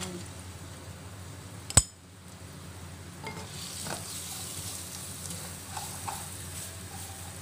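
Pounded garlic, coriander roots and peppercorns sizzling in oil in a wok, stirred and scraped with a wooden spatula. A single sharp click comes about two seconds in, after which the sizzling hiss grows louder.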